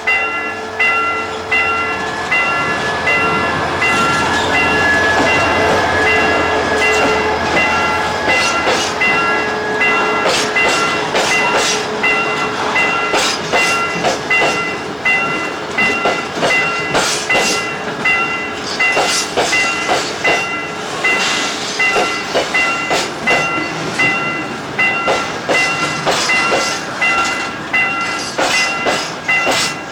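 Freight train crossing a level crossing, its wheels knocking rhythmically over the rail joints, while the crossing alarm rings on in a steady repeating electronic bell pattern.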